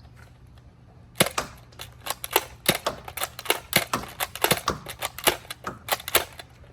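Nerf Elite Disruptor dart blaster being worked: a quick, irregular run of sharp plastic clicks and snaps from priming and firing, starting about a second in.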